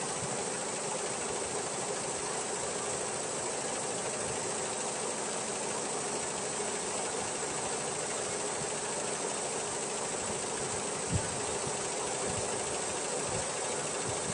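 Multi-needle quilting embroidery machine (model JYQ234, 68 needles on 34 heads) running steadily with a continuous mechanical hum and hiss. One short knock comes about eleven seconds in.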